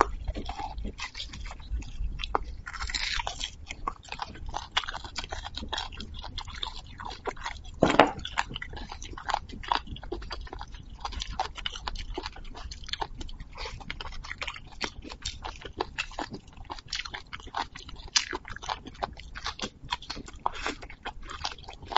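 Close-miked eating sounds from someone eating braised beef marrow bones: chewing, wet lip smacks and sucking the marrow from the bone ends, a steady run of short clicks and smacks with one louder burst about eight seconds in.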